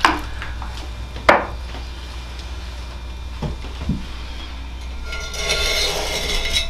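A cutting wire drawn under the base of a freshly thrown clay mug to cut it off the pottery wheel head, a short scraping hiss near the end. Before it come a couple of sharp knocks and a few light taps, over a steady low hum.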